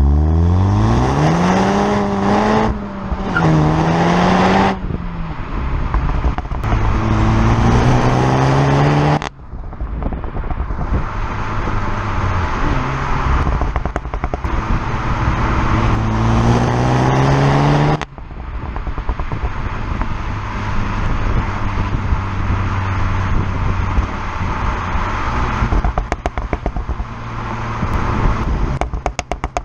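Seat Leon Cupra 300's turbocharged 2.0-litre four-cylinder heard at its stock exhaust, which has no particulate filter, in repeated hard acceleration runs. The revs climb with quick gear changes, then drop sharply on lift-off. Crackles and pops on the overrun are plainest near the end.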